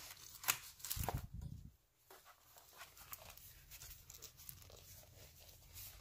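Handling of a notebook in a leather journal cover: paper pages rustling and being leafed through, with the cover rubbing and tapping as it is closed and held. The rustling is busiest in the first couple of seconds, then goes faint.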